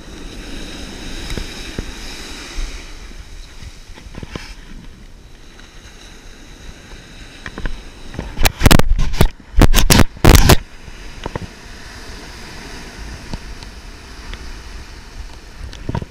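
Surf washing over the sand as a steady hiss, broken about halfway through by three loud, abrupt bursts of noise on the microphone within two seconds.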